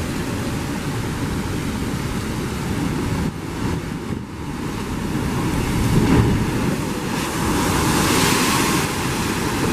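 Sea surging into a coastal blowhole chasm: a steady rush of surf that dips briefly, swells with a low surge about six seconds in, then turns to a loud hiss of spray as a wave blasts up through the rock.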